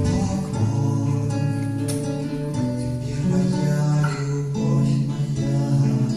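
Acoustic guitar music: chords held and changing about every second or so.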